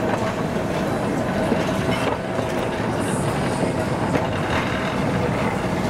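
Heritage double-deck electric tram running past close by: a steady rumble of its wheels and running gear on the rails, with a faint steady whine in the first half.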